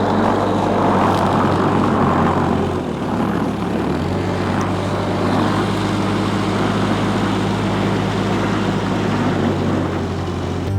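An engine running steadily: a constant low hum with a rushing noise over it.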